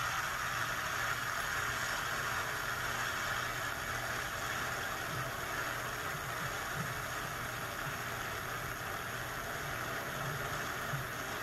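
Large audience applauding steadily, heard through a television's speakers.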